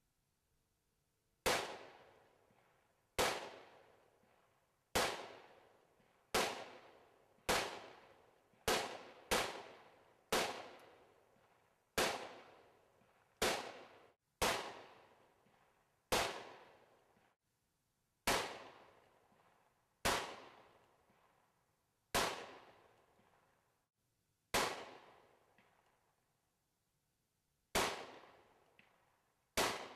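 Taurus Judge revolver firing .45 Colt hollow-point rounds: about eighteen sharp shots, one to two seconds apart and irregularly spaced, each trailing off in a long echo.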